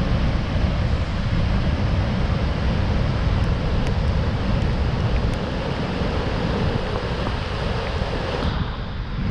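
Strong wind buffeting the microphone, a loud, steady rushing noise with heavy low rumble.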